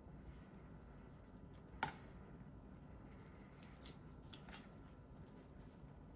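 Quiet kitchen handling noise with three short sharp clicks, the loudest a little under two seconds in and two fainter ones later.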